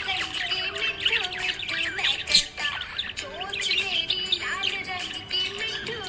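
Budgerigar chirping and warbling in a rapid, continuous chatter of short high chirps and squeaks, over background music with a held, gliding melody.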